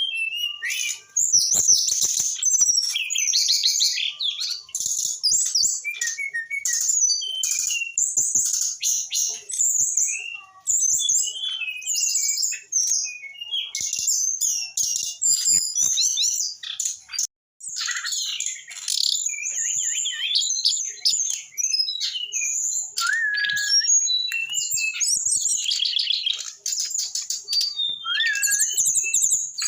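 Brown-chested jungle flycatcher singing a fast, varied, nearly unbroken song of high trills, chips and short whistles, with one brief pause a little past halfway.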